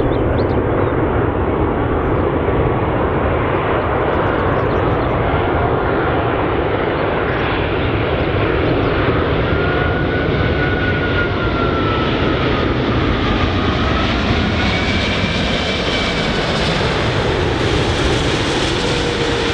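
Airbus A380-841's four Rolls-Royce Trent 970 turbofan engines on final approach: a loud, steady jet roar, with a faint whine that slides up and down in pitch from about halfway through.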